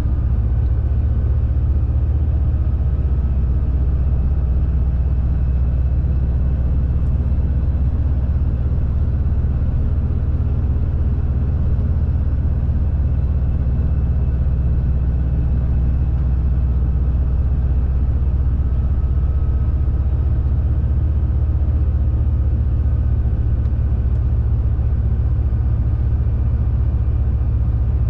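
Shacman X3000 heavy truck, fully loaded, heard from inside the cab at a steady cruise: a low, even engine drone that holds one pitch throughout, with road noise over it.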